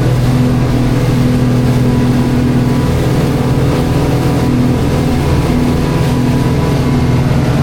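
Charter fishing boat's engine running steadily, a loud, even low drone with no change in pitch.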